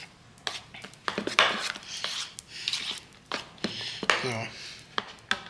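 A utensil stirring thick waffle batter in a bowl, with repeated clicks and taps against the bowl and short scraping swells.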